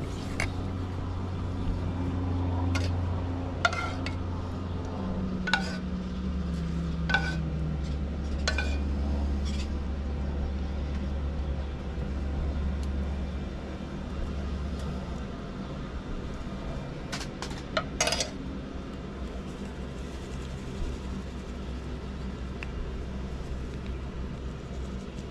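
Scattered light clinks and knocks of a metal spoon against a saucepan and roasting pan as melted butter is spooned over whole raw chickens, with a cluster of quick clicks near the end. Under it runs a low steady rumble, with a passing engine-like drone about a third of the way in.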